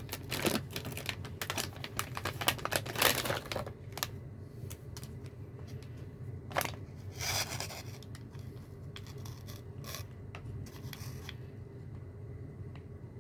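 Plastic packaging of a small collectible figure being torn and crinkled open by hand, with a quick run of clicks and rustles in the first few seconds, a longer rustle about halfway through, and sparser taps after.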